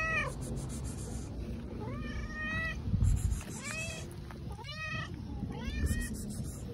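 Cat meowing loudly, four or so meows, each rising and then falling in pitch, the longest about a second in. A low thump about three seconds in.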